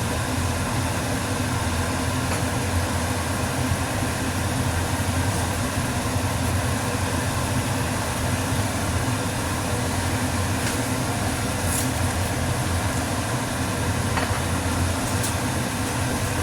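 Steady low mechanical hum with an even rushing noise over it, from machinery running in a kitchen while food cooks on the stove. A few faint clinks come in around the middle and near the end.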